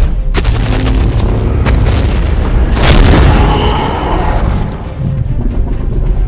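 Film battle soundtrack: orchestral music under heavy booms and impacts, with one loud explosive blast about three seconds in.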